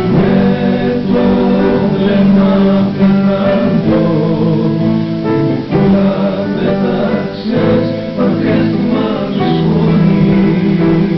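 A song playing: voices singing over plucked acoustic guitar.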